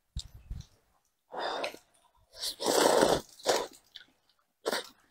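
A person slurping soupy rice noodles: several wet sucking slurps with short pauses between, the longest and loudest about halfway through.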